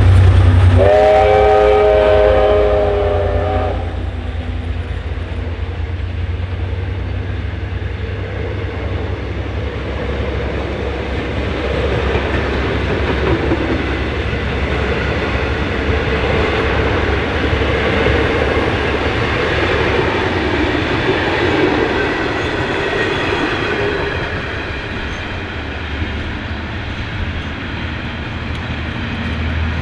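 Diesel locomotives rumbling past as a locomotive horn sounds a steady chord of several notes for about three seconds near the start. Then a rake of passenger carriages rolls by, wheels clattering on the rails, the sound slowly easing.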